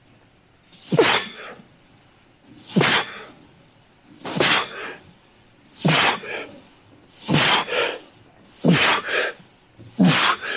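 A man's forceful breaths with a short grunt, one on each leg-press repetition: seven hard exhalations about one and a half seconds apart, each grunt falling in pitch.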